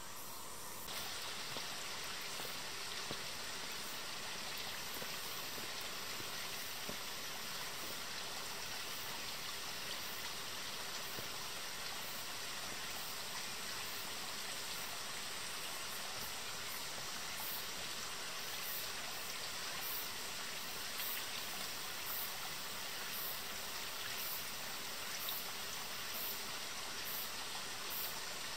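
Steady rushing of a forest stream, cutting in abruptly about a second in.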